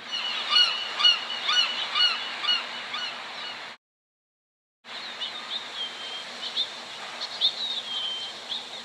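Two back-to-back bird-call sound effects over a steady background hiss. The first is a run of short repeated calls, about two a second, that cuts off abruptly; after about a second of silence, the second is a scattering of chirps and falling whistles.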